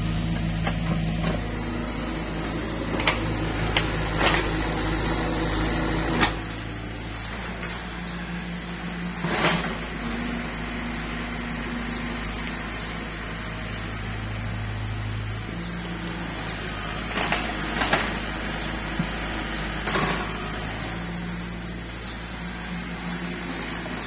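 Mini excavator's diesel engine running steadily, its note rising and falling as the hydraulics take load. Several sharp clanks and clatters of the steel bucket striking and dropping rocky soil.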